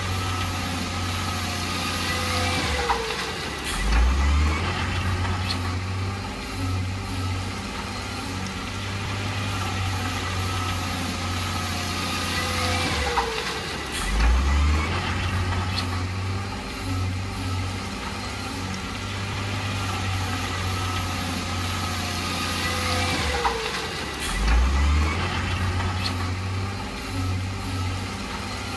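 Diesel engine of heavy earthmoving machinery running steadily, with a falling tone followed by a heavy low thump about every ten seconds, three times in all.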